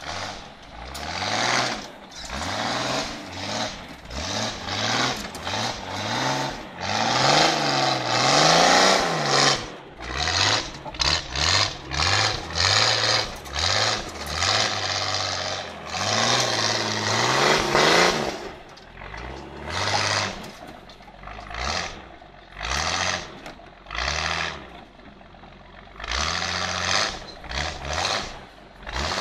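Off-road Jeep's engine revving again and again under load on a dirt climb, its pitch rising and falling with each burst of throttle. The longest, loudest surges come about a quarter of the way in and again past halfway, with a lull near the end.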